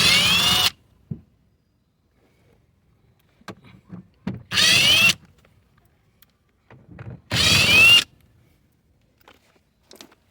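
Cordless drill driving a 5/16 socket in three short bursts, each under a second, with the motor's whine rising and falling in pitch as it spins out the bolts. Light clicks of handling between the bursts.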